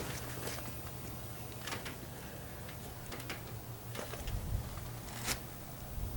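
Faint scattered clicks and scrapes of flat spline being worked into a screen door frame's channel, over a steady low hum.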